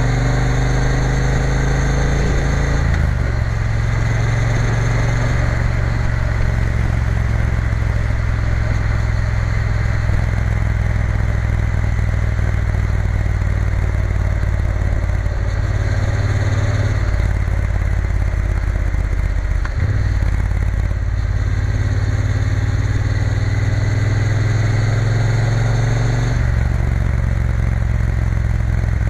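Triumph Bonneville T120's parallel-twin engine running on the road, the note rising at the start and then shifting in steps several times through the ride.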